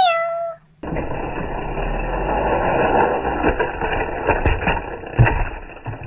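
A single falling meow, then a die-cast push-along toy train rolling and rattling along plastic track for about five seconds, with a few sharp clicks near the end.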